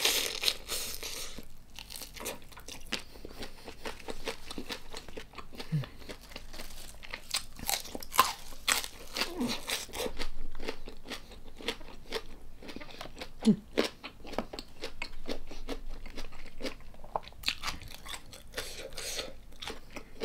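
Close-miked eating of a Korean soy-sauce-marinated tiger prawn: a loud bite at the start, then chewing with many small sharp clicks.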